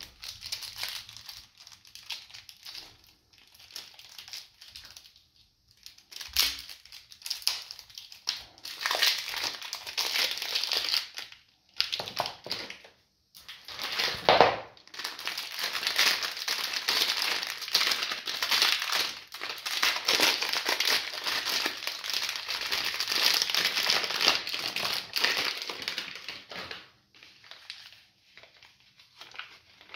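Plastic soap wrapping crinkling and rustling as hands handle and unwrap bars of soap, in uneven spells that are heaviest through the middle. A soft knock about six seconds in, as a bar is set down.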